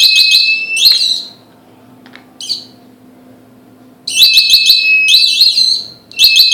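Electronic alarm buzzer of a home-made laser tripwire alarm going off in bursts, a high steady tone with a fast warble over it: each burst marks the laser beam being interrupted at the light sensor. It sounds three times for a second or two each, with a brief chirp in between.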